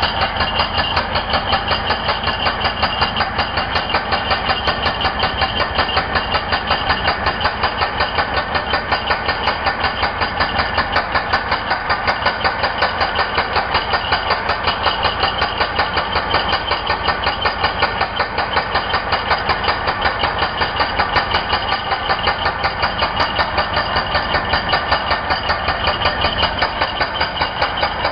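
INGCO 16 kg electric concrete breaker hammering steadily with a rapid, even beat, cutting off at the very end.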